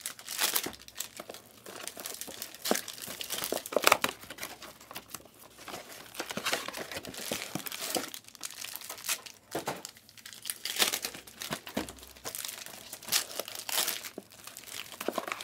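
Plastic wrapping of Panini Prizm trading-card packs crinkling and tearing open: a continuous irregular crackle with sharper snaps now and then.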